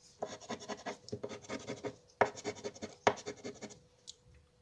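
Scratch-off lottery ticket being scratched with a small green disc, in several short bursts of rapid strokes that stop near the end.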